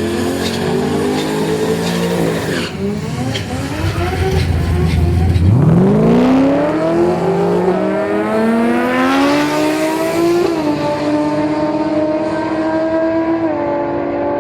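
Holden Commodore's 6-litre L76 V8 through a twin 3-inch exhaust, running unevenly for a few seconds and then accelerating hard, its note climbing steadily. The pitch steps down at two upshifts in the second half.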